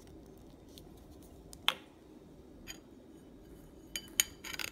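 A few light clicks and taps from a glitter container being handled over a glass bowl, one sharper click about a second and a half in and a quick run of small taps near the end, over faint room noise.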